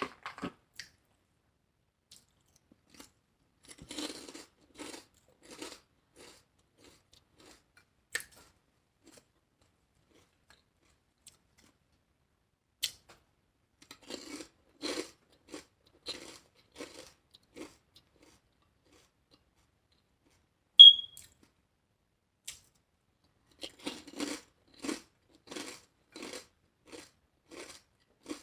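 A person chewing crunchy food close to the microphone, in three spells of rhythmic crunching bites about two a second. A short, sharp high squeak sounds once about three-quarters through.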